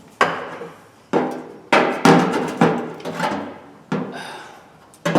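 Hammer blows on a steel Craftsman toolbox, about seven strikes at uneven spacing, each ringing briefly: dent work on the sheet metal.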